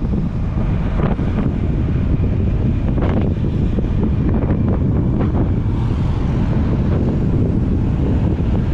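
Strong wind buffeting the microphone, a steady low rumble, with a few faint knocks about 1, 3 and 5 seconds in.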